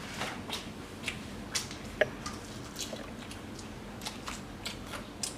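A person chewing food, with a dozen or so short, sharp clicks and smacks at irregular intervals, the sharpest about two seconds in.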